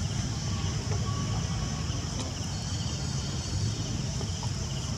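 Outdoor background noise: a steady low rumble with a constant high insect buzz over it.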